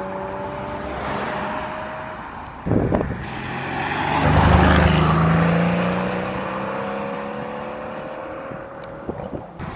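Car engines passing by on a road: a steady engine hum, a short thump about three seconds in, then a Mercedes-AMG C-Class saloon drives past close by. Its engine grows to a loud peak and fades away.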